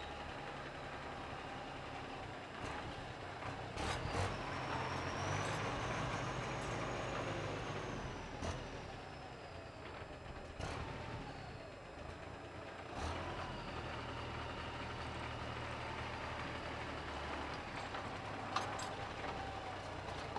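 MTZ-50 tractor's four-cylinder diesel engine running at low revs while reversing a trailer, a little louder for a few seconds near the start, with several sharp clunks. A faint thin whine rises and falls in the middle.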